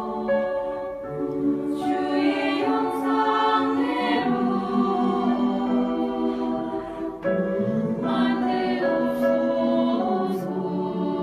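Four-part mixed church choir singing a Korean Catholic hymn in held chords, the harmony shifting about four seconds in and again about seven seconds in, with soft 's' consonants now and then.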